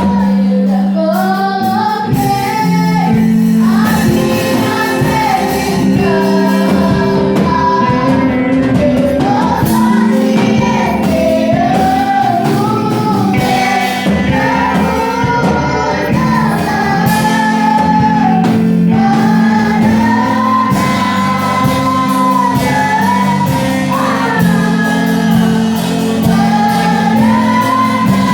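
Female voices singing a Portuguese-language Christian worship song over steady instrumental accompaniment.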